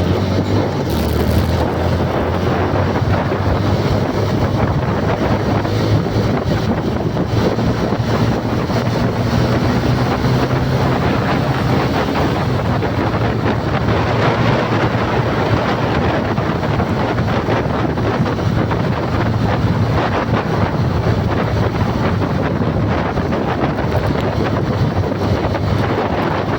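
Wind buffeting the microphone in a loud, steady rush, over the low, steady rumble of a vehicle in motion.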